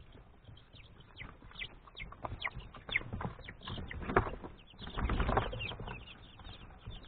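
Young chicks peeping in short, high, downward-sliding cheeps while pecking and tugging at a bundle of fresh grass, with taps and rustling of the grass blades, loudest about four to five and a half seconds in.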